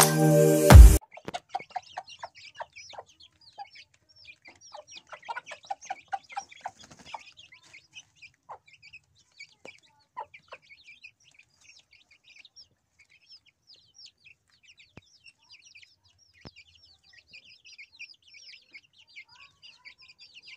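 Chickens clucking in short calls, busiest in the first seven seconds and then sparser, over a steady stream of high bird chirps. Song music cuts off with a click about a second in.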